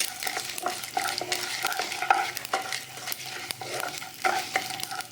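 Tempering spices (mustard seeds, dried red chillies and chana dal) sizzling and popping in hot oil while a spoon stirs and scrapes the pan, with many sharp clicks through the steady frying hiss.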